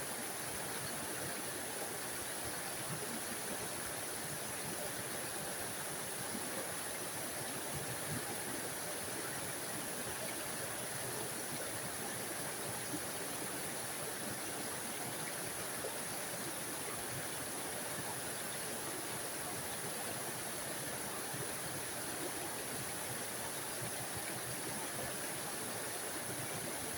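A small forest waterfall splashing and rushing steadily, an even hiss of falling water with no change.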